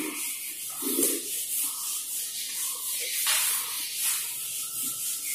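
Whiteboard duster rubbing across a whiteboard in repeated wiping strokes, a dry swishing hiss that swells and fades with each stroke.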